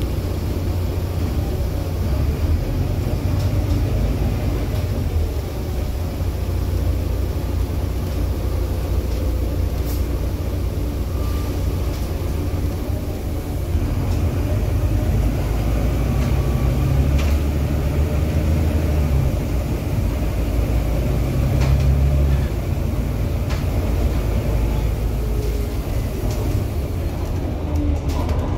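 Volvo B9TL double-decker bus's six-cylinder diesel engine driving, heard from inside the passenger saloon: a steady low drone that swells and eases in places as the bus pulls. Occasional sharp clicks and rattles from interior fittings.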